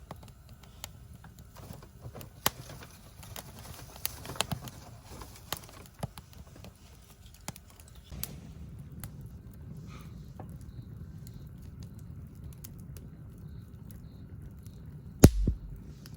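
Wood campfire crackling and popping in scattered sharp snaps, with a steady low rumble underneath from about eight seconds in. A single loud knock comes near the end.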